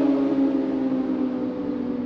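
Kawasaki sport bike's engine note fading as it rides away, holding steady and slowly dropping in pitch.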